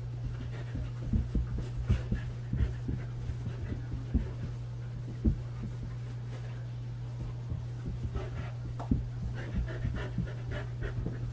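A dog panting, with soft irregular thumps of feet moving on a carpeted floor over a steady low hum.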